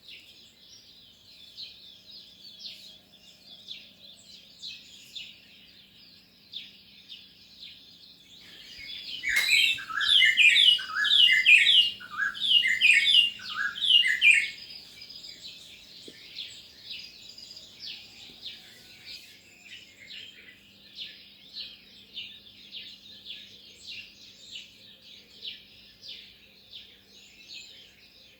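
Small birds chirping continuously. About nine seconds in, a nearby bird sings loudly for about five seconds: a quick series of notes that each slide downward in pitch, before the steady chirping carries on alone.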